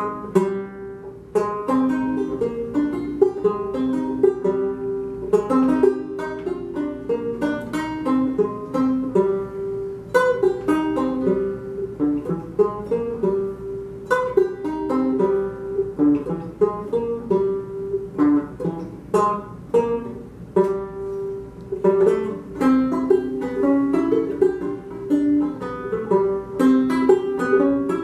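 Solo banjo playing a tune in a steady run of quick plucked notes that ring briefly.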